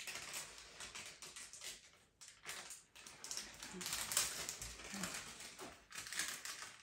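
Pastel being worked on paper: quick, dry scratching and rubbing strokes, irregular and uneven, with a brief pause about two seconds in.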